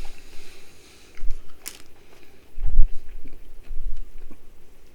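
Close-up chewing of a soft baked Oreo cookie bite, irregular mouth noises with a few low thumps and a sharp click between.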